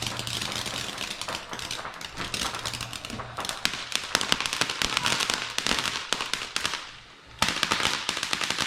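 Small ground firework going off with rapid, dense crackling and popping. It dies down about seven seconds in, then bursts into crackling again.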